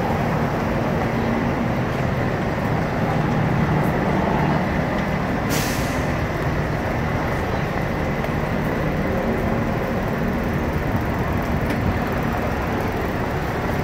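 Heavy vehicle engine running in city traffic, with a short hiss of released air-brake air about five and a half seconds in.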